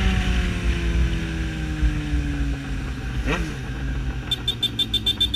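Yamaha XJ6 Diversion's inline-four through a full aftermarket exhaust, engine speed falling steadily as the motorcycle slows, with a quick throttle blip about three seconds in. Near the end a rapid ticking, about eight a second, joins in.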